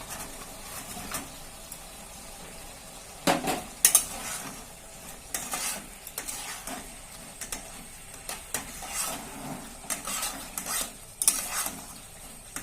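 A spatula stirring and scraping fried chicken pieces through a sizzling pan of sauce and capsicum, with repeated sharp clatters of the utensil against the pan over a steady frying sizzle; the loudest knocks come about three to four seconds in and again near the end.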